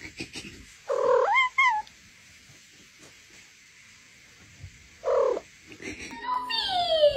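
Domestic cat meowing: a two-part meow about a second in and a short meow about five seconds in, then a long falling glide near the end.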